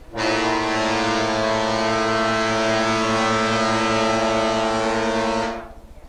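The ship's horn of the cruise ship MS Starward sounding one long, steady blast of about five seconds. It is a rich note of many tones together, starting sharply and then cut off.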